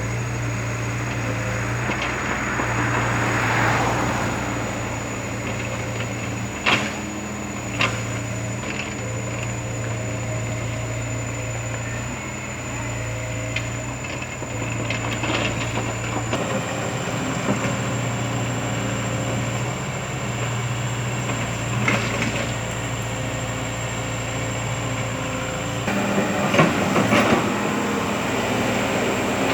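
KOBELCO hydraulic excavator's diesel engine running steadily, swelling and easing every few seconds as the machine works. A few sharp metallic knocks come through, two close together early on, one about two thirds of the way in and a quick cluster near the end.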